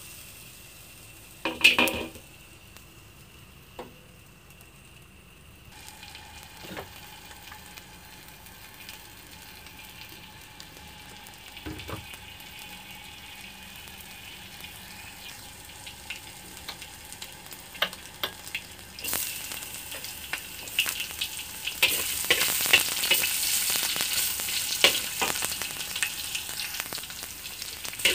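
Oil in a wok sizzling faintly, then sizzling loudly with crackles from about two-thirds of the way in as chopped onions fry, with a metal spatula scraping and stirring them. A single knock about two seconds in.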